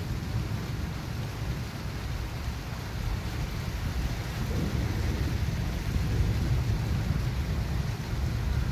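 Supercell thunderstorm: a steady low rumble with a fainter hiss above it.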